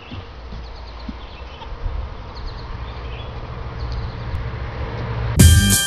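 Quiet outdoor ambience: a low steady rumble with a faint hiss and a few faint high chirps. Near the end, loud rap music with heavy drums cuts in suddenly.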